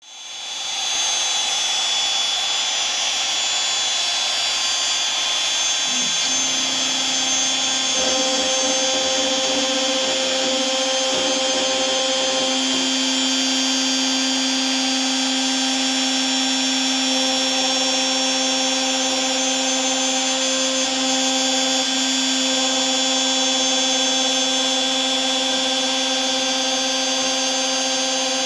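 DeWalt 611 compact router running at a low dial setting with a single-flute 1/8" bit, slotting 5.2 mm deep into HDPE on a LowRider 2 CNC, a steady whine throughout. About six seconds in, a lower steady hum joins it as the machine moves into the cut.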